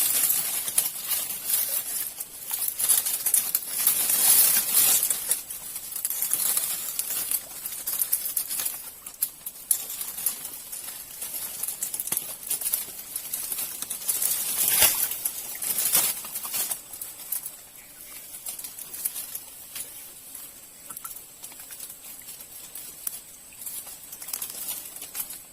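Irregular rustling and crackling close by, as of leaves, twigs and gear being handled, louder in the first few seconds and thinning out later. Two sharper clicks stand out a little past the middle, and a faint steady high whine, like an insect, carries on through the latter half.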